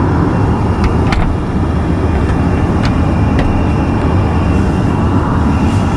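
Steady, loud airliner cabin noise, a low even rumble of engines and air flow heard inside the lavatory, with a few light clicks about one and three seconds in as the folding lavatory door is handled.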